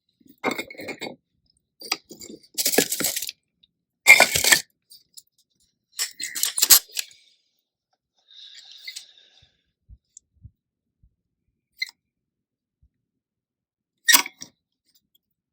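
Stone veneer being scraped and knocked to clear off loose material before a repair: about six short, gritty scraping bursts with pauses between them.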